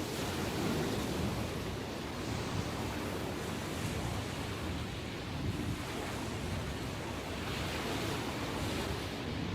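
Ocean waves breaking and washing in without pause, a steady surf noise that swells a little about three quarters of the way through, with some wind on the microphone. The sea is still rough after a typhoon.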